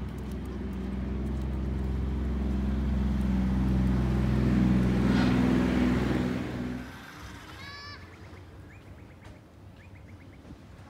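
A motor vehicle's engine runs with a steady low drone that grows louder until about five or six seconds in and then fades away at about seven seconds. After it, a bird gives a quick run of rapid chirps.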